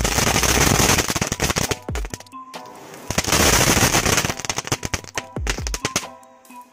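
Firecrackers going off in two rapid strings of sharp cracks and pops, each about one and a half to two seconds long, with scattered pops between and after. Electronic music with deep bass hits plays underneath.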